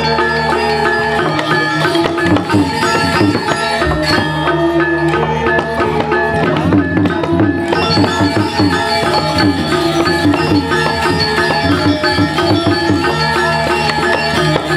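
Balinese gamelan playing: bronze metallophones ring out many short, pitched notes in a fast, continuous pattern over hand-drum strokes, with sustained low tones underneath.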